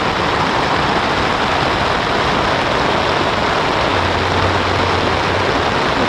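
Heavy rain falling on the fly of a nylon dome tent, heard from inside: a steady, dense hiss.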